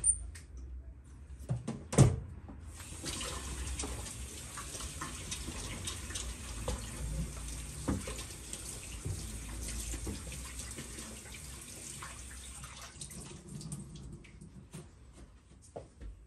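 A sharp knock, then a kitchen tap runs steadily for about ten seconds as hands are washed under it, and the water stops near the end.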